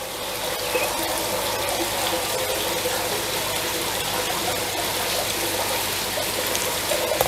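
Water poured in a steady thin stream from a stainless steel measuring jug onto perlite, trickling and soaking into the grains as the perlite is wetted into an egg incubation medium.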